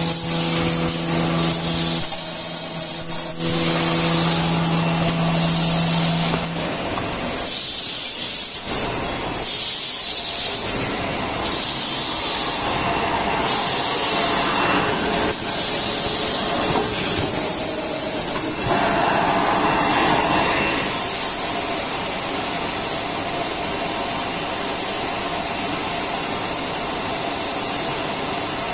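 Automatic facial-tissue production and packing machinery running, with repeated bursts of hissing every second or two over a steady machine hum that drops out after several seconds; the sound settles to an even, quieter machine noise near the end.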